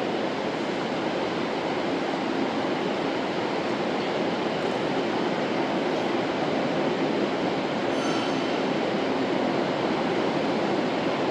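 Steady rain falling on a large building's roof, heard from inside as a dense, even hiss that doesn't let up.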